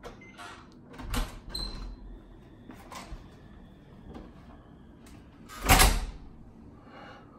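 Apartment door being opened, with a few clicks and knocks of the latch and handle, then shutting with a loud heavy thud near the end.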